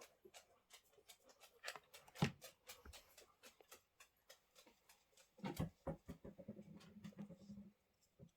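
Faint rustling and light taps of fabric and cardboard being handled and pressed together, with a sharper knock about two seconds in. A short, low steady hum sounds with more handling about two-thirds of the way through.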